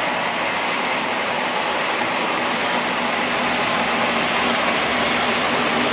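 Monarch 10EE lathe running under its inverter drive with the spindle at about 2,000 RPM: a steady whirring, hissing running noise with a faint constant hum.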